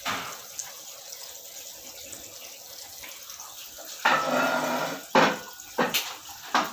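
Water running through a reverse-osmosis water purifier during a pressure leak check: a steady hiss of flowing water, then a louder humming tone for about a second past the middle, followed by a few short, sharp sounds near the end.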